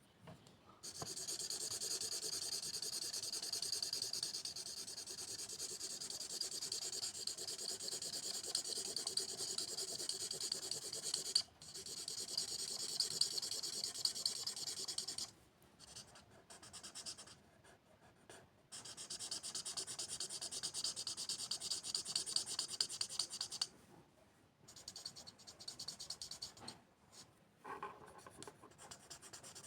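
A pen or marker moving quickly back and forth on paper, as in colouring in. It makes long runs of fast scratchy strokes, with short breaks about 11 and 24 seconds in and a longer pause from about 15 to 19 seconds.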